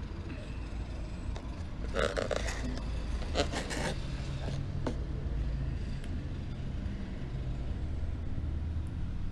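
Cardboard picture frame being handled and turned over on a tiled floor, with short scraping and rustling sounds about two and three and a half seconds in, over a steady low rumble.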